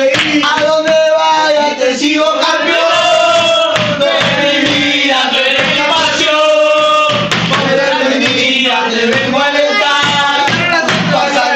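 Football supporters singing a chant together over pounding drums.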